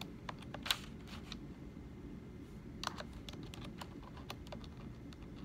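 Computer keyboard being typed on: irregular light key clicks with a couple of louder strikes, over a low steady room hum.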